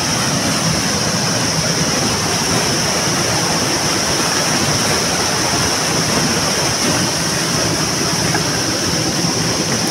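Steady rush of a stream's flowing water, an even noise that holds level throughout.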